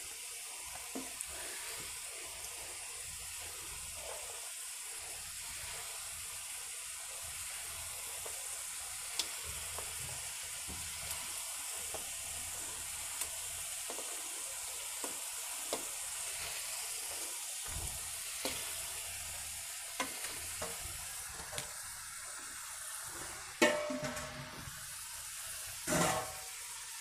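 Raw chicken pieces frying in oil and green masala paste in a pan: a steady sizzle with scattered small ticks, as pieces are added to paste fried until its oil separates. Two louder knocks come near the end.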